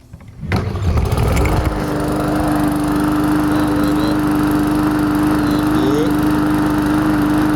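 Small walk-behind lawn mower's engine firing up about half a second in, stuttering briefly before it catches, then running steadily at speed.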